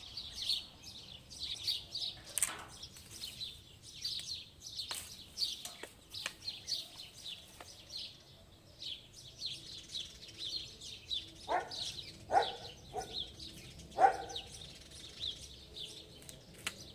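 Small songbirds chirping almost without pause, a rapid chatter of quick, high, falling notes. A few short sharp snaps break in between about 11 and 14 seconds, the loudest about 14 seconds in.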